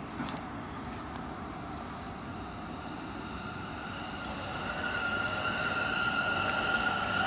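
City traffic noise from below the balcony. From about four seconds in, a train's high, steady whine grows louder as it approaches.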